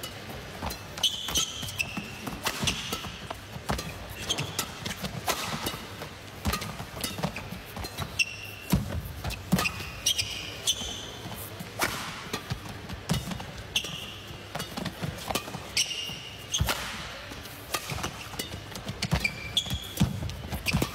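Badminton rally: repeated sharp racket hits on the shuttlecock, with shoes squeaking and feet thudding on the court.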